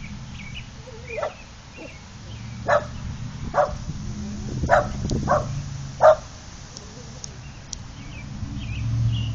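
Dog barking about six times, single sharp barks a second or so apart. A car engine grows louder near the end as it approaches.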